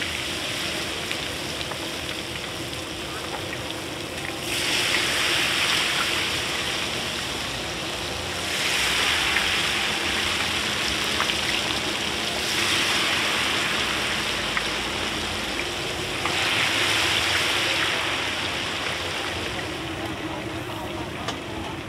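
Gai tod, marinated chicken pieces, deep-frying in a large wok of hot oil: a steady bubbling sizzle that swells louder for a few seconds at a time, four times over.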